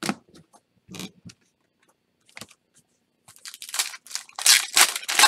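Foil wrapper of a Topps Chrome baseball card pack being torn open and crinkled by hand: a few short crackles, then a dense, louder run of tearing and crinkling over the last two seconds.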